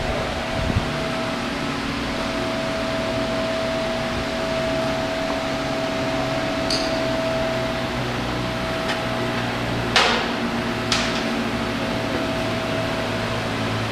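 Steady mechanical hum of workshop machinery with a constant high whine running through it, and two sharp knocks about ten and eleven seconds in.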